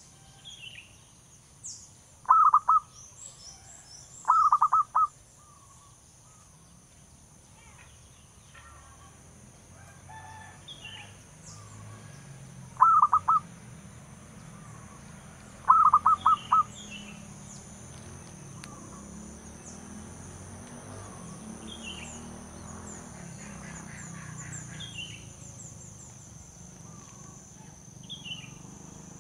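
Zebra dove calling: four short bursts of rapid staccato cooing notes, two close together near the start and two more about halfway through.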